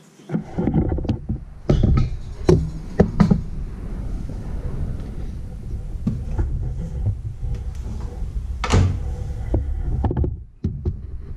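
Handling clatter as a stainless steel mixing bowl with hand-mixer beaters in it is knocked about and set into a microwave oven, with several sharp knocks in the first few seconds. The microwave oven door shuts with a loud thud about nine seconds in.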